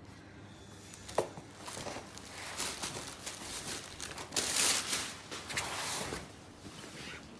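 Rustling and crinkling of a folded saree being lifted and spread out by hand, loudest about four and a half seconds in, with a sharp knock about a second in.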